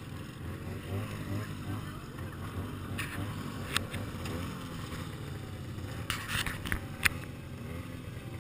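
Snowmobile engines idling, a low steady rumble, with a few sharp clicks and knocks about three seconds in and again around six to seven seconds in.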